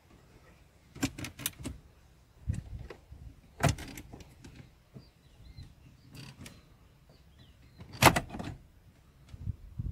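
Sharp plastic clicks and knocks of car dashboard trim: caps and plugs around the head unit being worked loose and pulled out. A quick cluster comes about a second in, then single knocks every couple of seconds, the loudest about eight seconds in.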